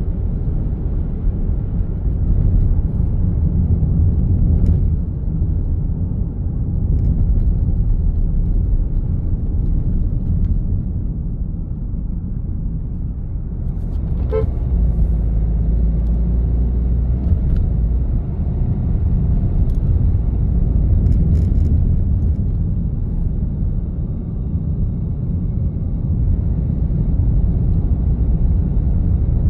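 Steady low rumble of road traffic and a vehicle's engine and tyres while driving on a busy road among heavy trucks. A brief sharp sound cuts in about halfway through.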